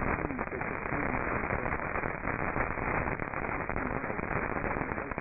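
Radio static: a steady hiss thick with rapid crackles and clicks, heard through a narrow-band radio receiver with no program audio.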